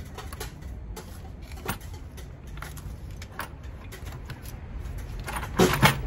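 Scattered light clicks and knocks of hand tools and metal parts in the engine bay as intake-manifold bolts are worked loose, with one louder clatter about five and a half seconds in.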